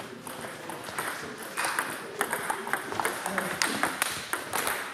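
Table tennis rally: the ball clicks sharply off bats and the table at an uneven pace, over the murmur of a busy sports hall.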